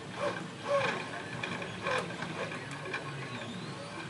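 A lock pick and tension wrench working the pins of a pin tumbler lock: small metallic clicks and scraping, with a few sharper clicks about a quarter second, three quarters of a second and two seconds in.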